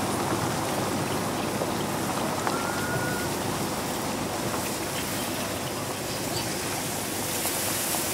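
Pickup truck towing a trailer driving away down a gravel road: a steady rushing noise of tyres on gravel that fades slightly.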